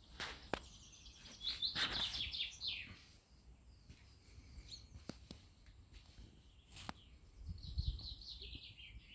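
A small songbird singing: two phrases, each a quick run of notes falling in pitch, about a second and a half in and again near the end, with a few sharp clicks between them.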